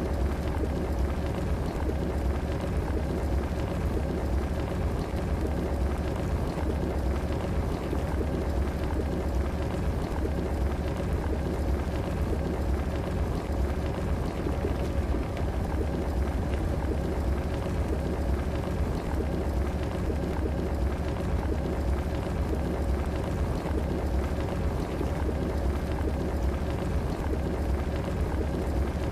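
Electric kettle boiling water, a steady bubbling with a low rumble that does not let up.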